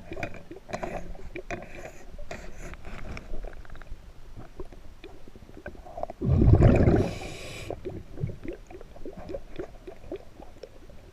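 Underwater: a scuba diver breathing through a regulator. Softer hissing breaths come in the first few seconds, then a loud rush of exhaled bubbles about six seconds in, lasting a second and a half. Faint crackling and popping runs throughout.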